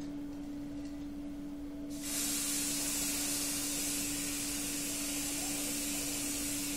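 Aerosol spray paint can hissing steadily as paint is sprayed onto a canvas, starting abruptly about two seconds in. A steady low hum runs underneath.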